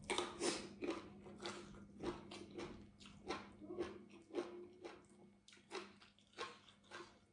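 Close-up chewing and mouth sounds of a person eating roasted pickled sour fish by hand: short wet clicks and smacks, two or three a second, growing sparser in the second half.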